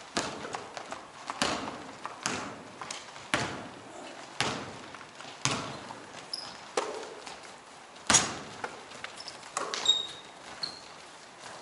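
Basketball game on an indoor court: a ball bouncing on the hardwood floor in thuds about once a second, echoing in the hall, the loudest a little past eight seconds in. Short high sneaker squeaks come in the second half.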